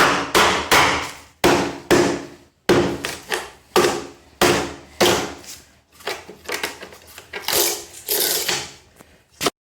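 Repeated hammer blows on masonry, about one and a half to two strikes a second and each with a short ring, then a few irregular scraping knocks near the end.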